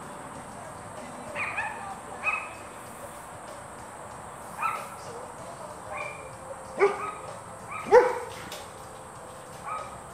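Small dog barking in short, high-pitched yips, about seven spaced barks, the loudest about eight seconds in.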